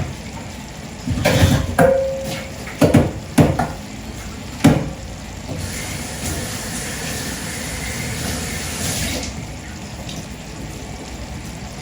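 Pots and a pot lid knocking and clattering a few times, one knock ringing briefly, as a cooking pot is covered. Then water runs from a tap for a few seconds.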